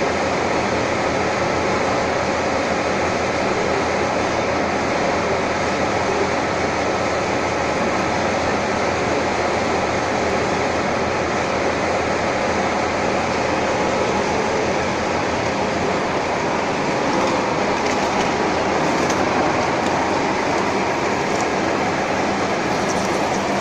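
Steady running noise of a metal-turning lathe and workshop machinery, an even rumble with a faint whine in it that holds unchanged throughout.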